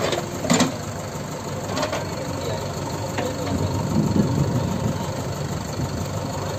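Diesel engines of a JCB 3DX backhoe loader and a tractor running steadily, with two sharp metal clanks near the start. The backhoe engine pulls harder around four seconds in as the bucket digs into the mud.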